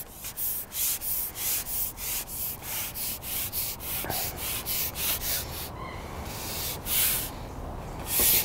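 A carbon fishing pole rubbing and sliding in quick, even strokes, about three a second, as it is shipped back with a hooked fish on. The strokes stop about five and a half seconds in, followed by a couple of longer single rubs.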